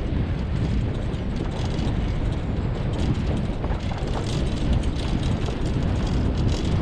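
Wheels of a dog-drawn rig rolling over a dirt and gravel track behind a team of Siberian huskies: a steady, loud rumble with constant small crunches and rattles.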